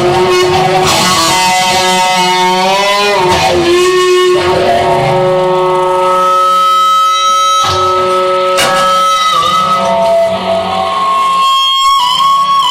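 Instrumental music led by guitar, playing long held notes that bend in pitch.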